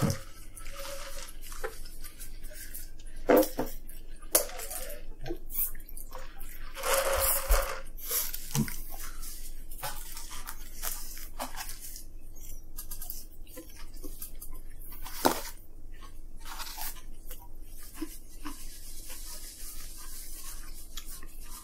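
People eating fast food at a table: scattered small clicks, rustles and chewing sounds as chicken and a sandwich are picked up and handled in paper boxes, with one longer crinkle about seven seconds in. A faint steady hum runs underneath.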